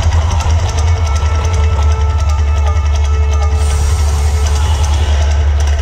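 Drum-heavy music from the Mirage volcano show, over a steady deep bass rumble. About three and a half seconds in, a rushing hiss rises for about two seconds as the volcano's flames flare into a fireball.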